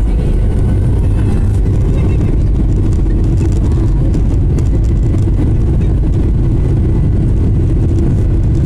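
Boeing 737-800 jet engines at high thrust heard inside the cabin: a loud, steady roar with a heavy low rumble, typical of the takeoff roll.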